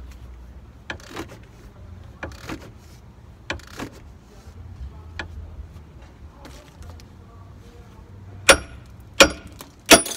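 Steel tools and suspension parts being worked by hand: scattered light metallic clicks and knocks, then near the end several loud, sharp metal-on-metal clanks that ring.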